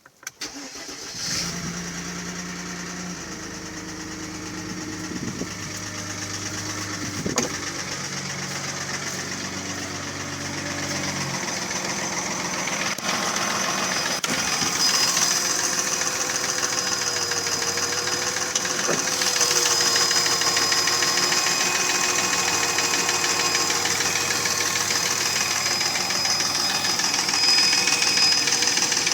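Mercedes ML320's M112 3.2-litre V6 running at idle with a knock, which the owner puts down to piston slap from scored cylinders rather than the timing chain, lifters or bearings. It grows louder over the first fifteen seconds, then stays steady.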